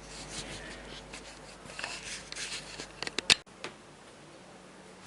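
Small parts of a disassembled camera lens being handled: rustling, light scraping and small clicks, with one sharp click a little over three seconds in, then quiet handling noise.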